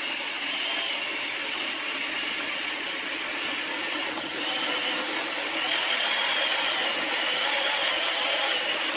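A SOUSKY 6-inch 24 V cordless mini chainsaw running, its electric motor and chain giving a steady high whine that wavers in pitch. It dips briefly about four seconds in, then runs a little louder.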